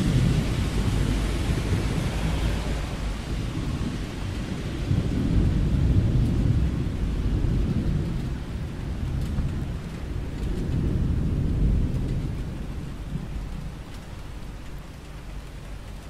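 Steady rain falling with thunder rolling underneath: a deep rumble that swells three times and then dies away near the end.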